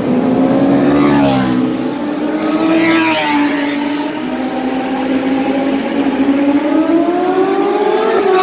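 Several superbikes passing one after another at speed. Each engine note climbs as the bike accelerates down the straight, then drops sharply as it goes by, about a second in, again around three seconds, and once more near the end.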